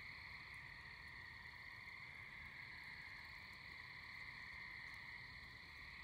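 Faint, steady night chorus of calling insects and frogs: a continuous high-pitched sound that holds level without breaks.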